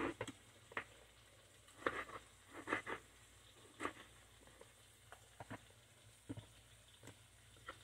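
Knife dicing a tomato on a wooden cutting board: about ten soft, irregular knocks of the blade on the wood. A faint sizzle of potatoes frying in a pan runs underneath.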